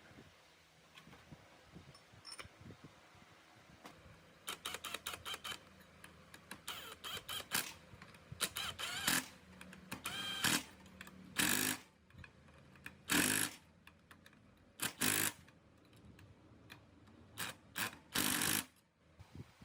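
Workshop tool and metal-part handling noises: a quick run of sharp clicks, then a series of short, loud scraping and clanking bursts, some with a metallic ring.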